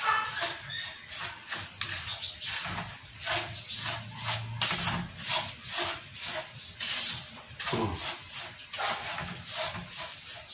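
Coarse rock salt stirred and scraped with a wooden spatula in a pot, a quick run of gritty scraping strokes. The salt is being dry-heated over the flame to drive out its moisture.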